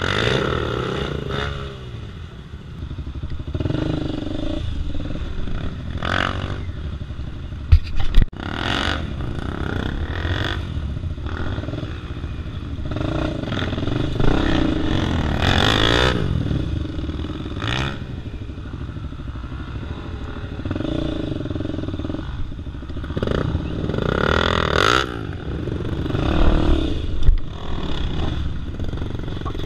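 Dirt bike engine revving up and dropping off over and over as it is ridden slowly over rough trail ground, with clatter from the bike. Two sharp loud knocks about 8 s in, and another near the end.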